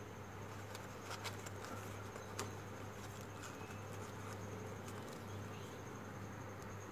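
Folded computer-paper origami modules being handled and slotted together: a few soft paper clicks and rustles, the sharpest about two and a half seconds in. Under them run a steady low hum and a faint high-pitched whine.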